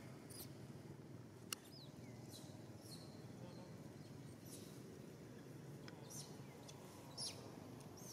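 Faint, short, high-pitched animal chirps and squeaks, a few gliding downward, scattered over a quiet outdoor background, with a single sharp click about one and a half seconds in.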